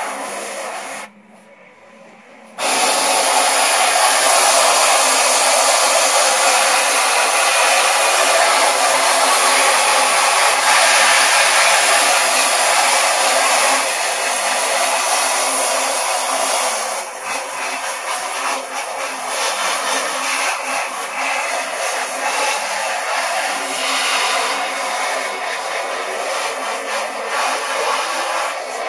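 A narrow jet of water from a hose nozzle hisses steadily against a silk-screen mesh, washing the unexposed emulsion out to develop the stencil. The spray cuts off briefly about a second in and comes back strong, then grows more uneven in the second half as the nozzle moves across the screen.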